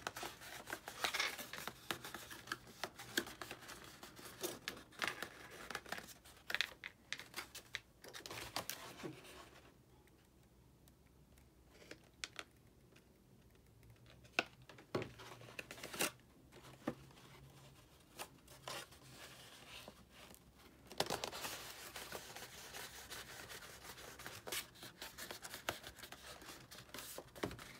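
Stiff cardstock petals being handled, bent and pressed together by hand: irregular rustling and crinkling of paper with sharp crackles, quieter for a few seconds near the middle.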